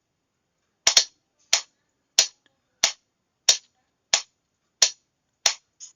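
A series of sharp, evenly spaced clicks, about three every two seconds. The first is a quick double.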